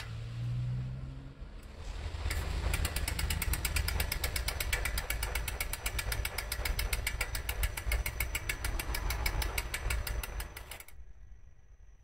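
Bicycle wheel spinning past a Meroca M4 four-piston hydraulic disc brake caliper, with rapid, even ticking over a low rumble that stops abruptly near the end. The caliper bolt has been loosened and the rotor no longer rubs the caliper.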